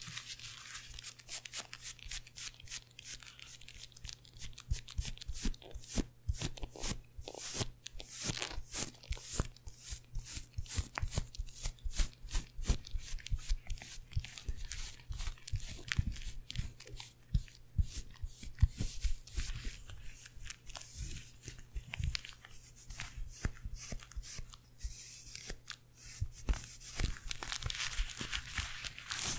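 Oval makeup brushes rubbed and tapped against a microphone's metal mesh grille, close up: a dense scratchy rustle full of sharp irregular clicks.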